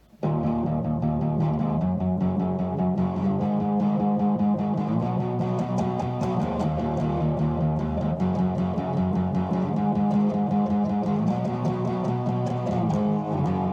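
Background music led by guitar and bass, with a steady rhythm, starting suddenly just after the start.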